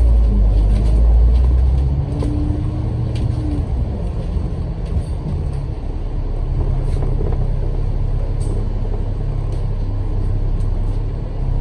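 Bus engine and drivetrain running under way, heard from on board: a continuous low rumble with road noise. The deepest part of the rumble eases about two seconds in, and a short steady hum sounds for a second or so just after.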